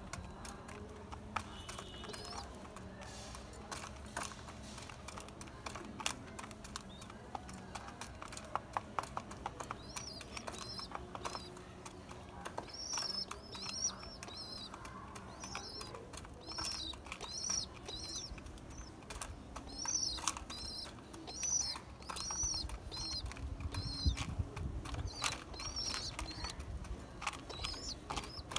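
Pigeons pecking grain from a plastic feeder: a quick, uneven patter of sharp clicks. From about a third of the way in, a bird chirps over it, short high chirps repeating about once or twice a second.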